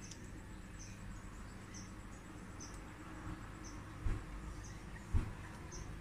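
Faint, short high-pitched chirps repeating about once a second, with two soft knocks about four and five seconds in.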